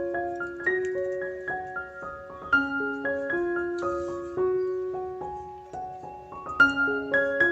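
Background piano music: a gentle pattern of single broken-chord notes, each fading after it is struck, repeating about every four seconds.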